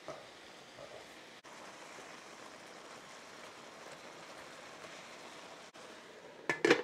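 Chicken and vegetables sizzling steadily in an electric skillet. Near the end a glass lid clatters onto the skillet with a few sharp knocks.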